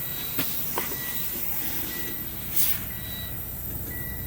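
Semi-truck's diesel engine running with a steady low rumble, while a thin high beep sounds on and off. Two light clicks come in the first second, and a short, loud hiss about two and a half seconds in.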